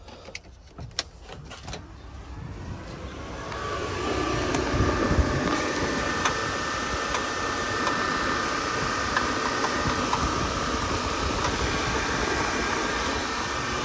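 A few clicks, then dual electric radiator fans spinning up over a couple of seconds and running with a steady whir. The fans are wired directly, with no temperature sensor yet.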